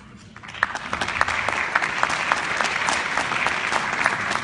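Audience applauding, starting about half a second in and quickly building to a steady, dense clapping.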